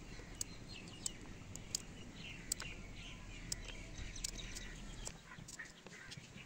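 Kitchen knife cutting through raw cauliflower stems, a faint crisp snap every second or so, with birds chirping faintly in the background.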